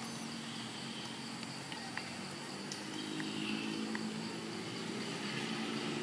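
A motor engine running steadily at a distance, its low hum growing louder about three seconds in, with a few faint ticks.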